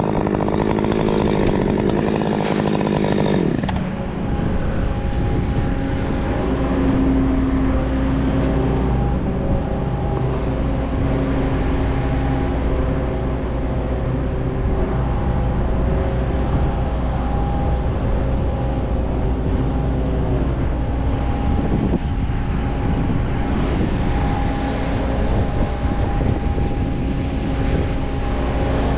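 Chainsaw running at high revs, dropping off sharply about four seconds in. After that, a small engine runs steadily at a lower speed.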